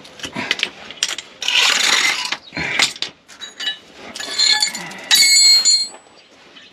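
Metal tools and parts clattering during hands-on work: irregular clicks and knocks, about a second of rough scraping noise, then bright, ringing metallic clinks near the end.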